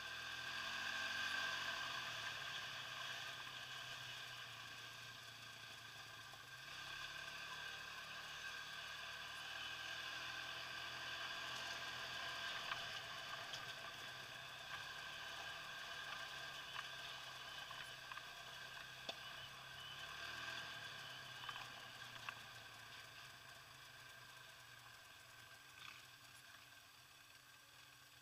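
Quad bike (ATV) engine running faintly under a steady hiss, its pitch shifting a few times as the throttle changes on a rough muddy trail. A few light knocks come through as the quad goes over bumps.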